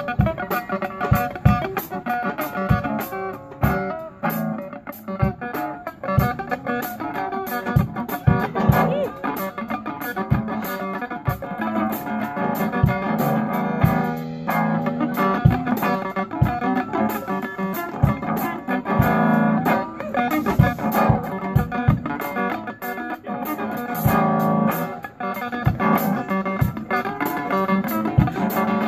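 Live band jamming: an electric guitar played through an amplifier, with a drum kit keeping a steady beat.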